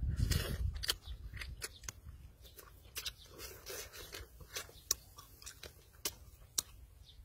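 Close-up eating sounds of a man biting and chewing cooked snake meat: wet smacking with sharp crunching clicks scattered throughout, loudest in the first second.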